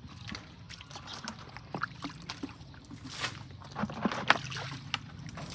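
Shallow muddy water sloshing and splashing as a plastic drum is lowered and tipped into a puddle, with scattered small splashes and one louder splash about four seconds in.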